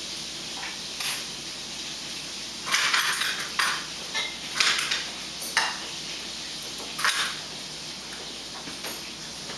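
Eating utensils clinking and scraping against small ceramic side-dish bowls as food is picked from them: about half a dozen short, irregular clatters.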